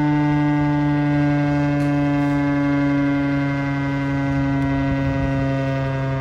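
Outdoor tornado warning siren sounding a loud, steady chord of several tones, sliding slowly and slightly downward in pitch.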